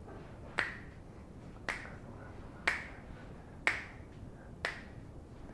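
A person snapping their fingers in a steady rhythm, five crisp snaps about a second apart.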